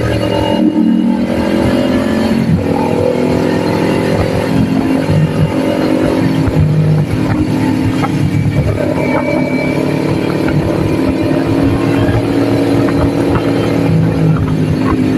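Kawasaki Ninja 400's parallel-twin engine running under way, heard from the bike. Its pitch changes a couple of times in the first few seconds, then holds steady.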